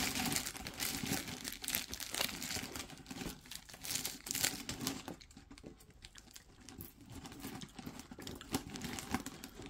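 Clear plastic bag lining a potato-chip tin crinkling as a hand rummages in it for chips. Irregular crackles, busier in the first few seconds, then sparser.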